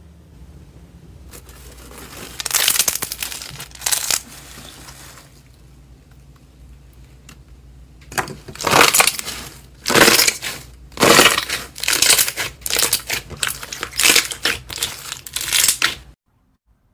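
Hands squeezing and pressing slime, making wet, noisy squishes: a couple a few seconds in, then about a dozen in quick succession, stopping abruptly near the end.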